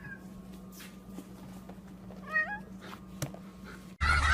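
A cat meows once, briefly, about two seconds in, over a faint steady hum. Near the end the sound cuts abruptly to louder honking geese.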